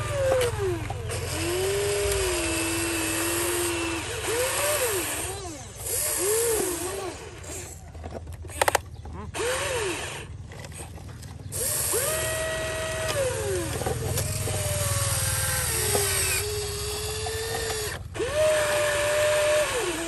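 Small electric motors of radio-controlled toy construction machines whining, again and again spinning up to a steady pitch, holding it for a second or two, then winding down. A few sharp clicks come about halfway through.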